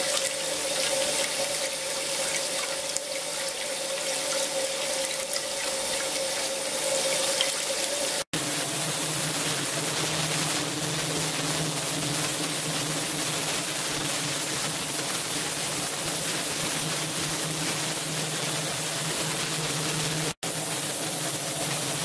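Water churning and splashing in an ultrasonic cleaning tank over a steady machine hum. The hum drops to a lower pitch at a cut about eight seconds in, and the sound cuts out for an instant near the end.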